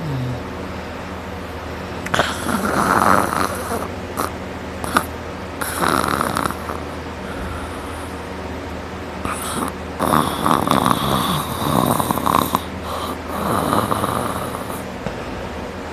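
A person asleep on their back snoring loudly, four rasping snores a few seconds apart that sound like sawing, with a few short clicks between them.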